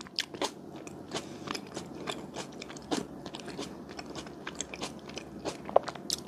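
Close-miked chewing of a green grape mochi: soft, wet mouth smacks and many small irregular clicks.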